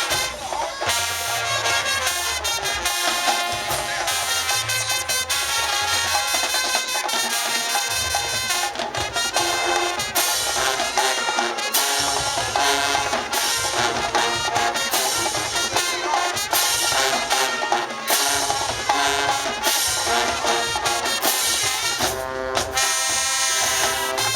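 High school marching band playing loudly, brass section with trumpets and trombones over the drums.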